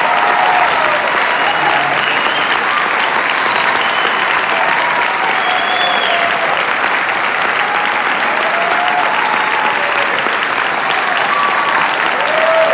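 A large theatre audience gives sustained curtain-call applause: dense, steady clapping with scattered cheers and whoops from voices in the crowd.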